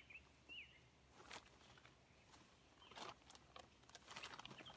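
Faint rustling of a plastic tarp as a person climbs into a tarp shelter: short crinkles about a second in, around three seconds in, and a cluster near the end. A bird gives one short chirp about half a second in.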